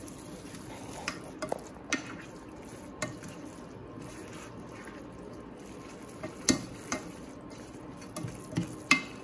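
Noodles in a thick sauce being stirred in a saucepan with a kitchen utensil: a steady soft stirring sound, with a few sharp clicks and knocks of the utensil against the pot, the loudest about six and a half seconds in and again near the end.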